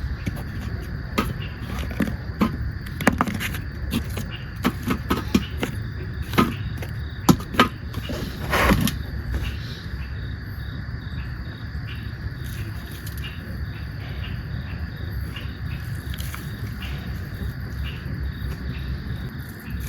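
Insects chirping over steady outdoor background noise. A string of sharp knocks and clicks runs through the first half, the loudest and longest about nine seconds in.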